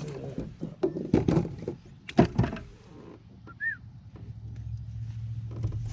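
Several sharp knocks and thumps as a small bass is landed and handled aboard a plastic fishing kayak, followed by a steady low hum in the second half.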